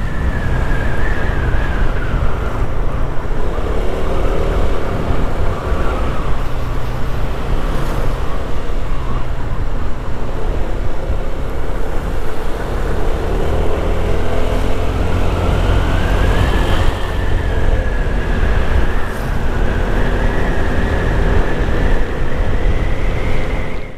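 Honda Vario 160 scooter riding along, heavy wind rumble on the microphone over the engine, whose faint note slowly rises and falls in pitch with speed.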